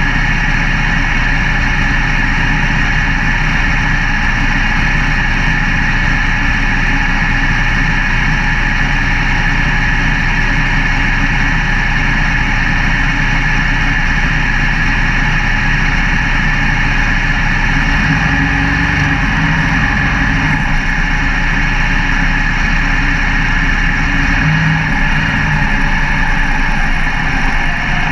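Dirt late model race car's V8 engine idling steadily, heard from inside the cockpit, with a brief low swell in the engine sound near the end.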